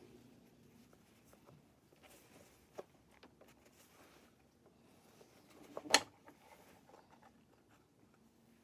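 Cloth rag rubbing and rustling over a plastic oil filter housing cap and its pleated filter element as it is handled and wiped, with small scattered clicks and one sharp click about six seconds in.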